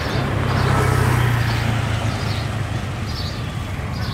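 A small motorbike engine running close by, swelling louder about a second in and then easing off, over street noise. A faint high chirp repeats about twice a second.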